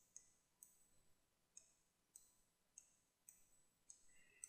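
Faint computer mouse clicks, about eight of them at irregular intervals of roughly half a second, as mesh vertices are selected and moved in Blender.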